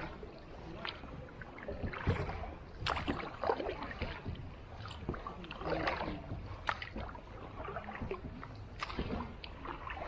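A boat paddled through calm water: irregular paddle splashes and knocks, a second or so apart, over a steady low rumble.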